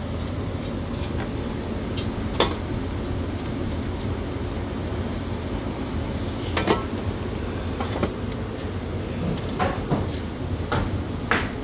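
Scattered sharp metal clinks and knocks, about seven over the stretch, as the exhaust downpipe joint is fitted and fastened with hand tools, over a steady low hum.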